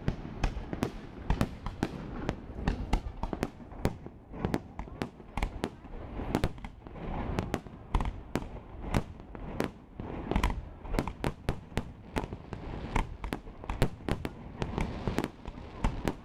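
Aerial fireworks shells bursting in a dense, irregular series of sharp bangs, several a second.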